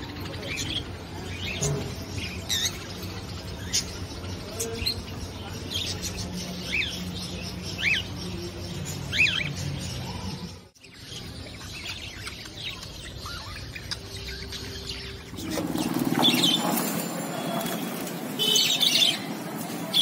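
Flock of caged budgerigars chirping, many short overlapping chirps, with a brief break about eleven seconds in; the chirping grows louder and busier over the last few seconds.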